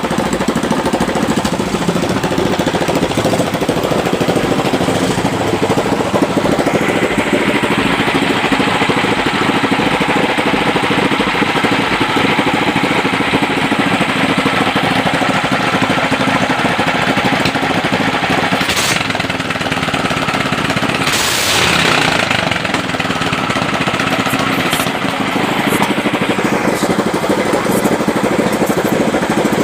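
Katinting longtail boat engine running loud and continuously with a rapid knocking clatter. Its sound turns harsher about seven seconds in and eases back near the end, with a brief louder hiss a little past two-thirds of the way through.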